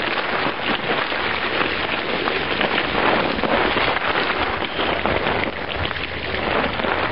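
Water pouring steadily onto a seated person's head and splashing off the body onto the clothes, chair and ground.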